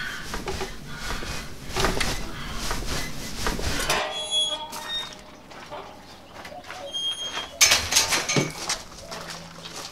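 Footsteps and rustling of people moving on foot for about four seconds, then a quieter stretch with a few short bird chirps. Footsteps and scuffing return near the end.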